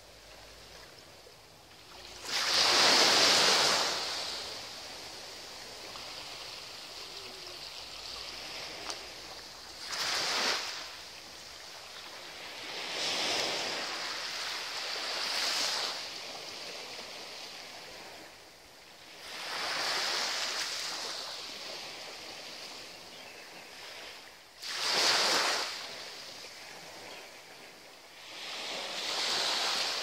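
Small sea waves breaking gently and washing up the sand, swelling and fading seven times at uneven intervals. The loudest wash comes about three seconds in, and another strong one about twenty-five seconds in.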